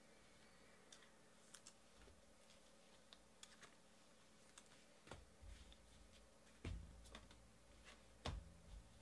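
Faint clicks and ticks of 2018 Topps High Tek baseball cards being handled and sorted by hand, with three soft thumps about five, six and a half and eight seconds in as cards are set down on the table.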